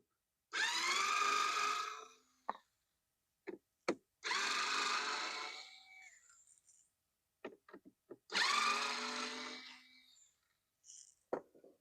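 Ironmark lithium cordless screwdriver's motor whining in three short runs of about a second and a half each, with small clicks between, as it is tried out after charging.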